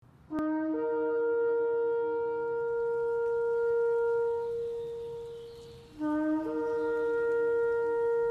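Two long shofar blasts. Each opens on a short lower note and then steps up to a higher note that is held for several seconds. The first fades away before the second begins about six seconds in.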